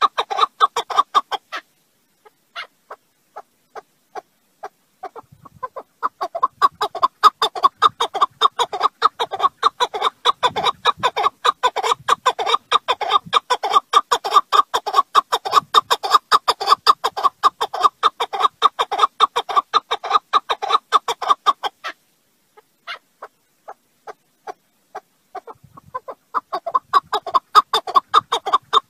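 Partridge calling a long series of short, rapid chuck notes, several a second. The calls break off twice into a few scattered notes for some seconds before the fast run starts up again.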